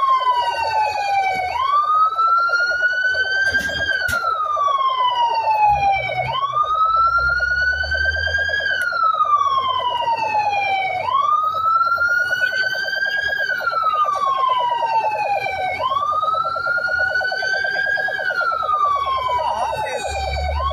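Fire truck siren wailing: each cycle rises quickly, then falls slowly, repeating about every five seconds, over a steady lower buzzing drone.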